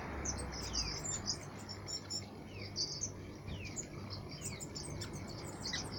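Waxbills chirping: many short, high, thin calls and quick falling notes, several birds overlapping. Under them is a steady hiss of water trickling from a small fountain.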